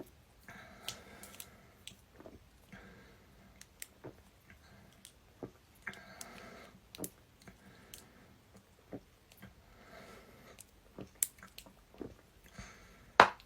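A person gulping a drink in a series of short swallows, with wet mouth and throat clicks in between. A sharp click near the end is the loudest sound.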